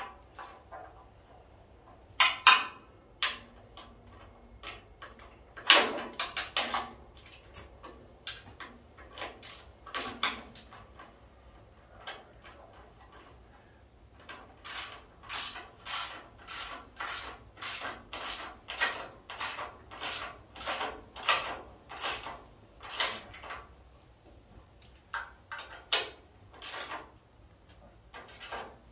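Hand ratchet tightening 9/16-inch bolts: a few scattered metallic clanks in the first half, then a steady run of ratchet strokes at about two a second in the second half.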